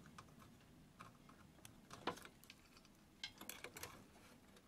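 Near silence with a few faint, sharp clicks of small plastic wire connectors being pushed onto a CRT television's circuit board: one click about two seconds in, then three or four more in quick succession a little past three seconds.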